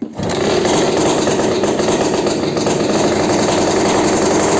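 The Belarus MTZ-52's pony engine, its small single-cylinder two-stroke petrol starting engine, running steadily and loud.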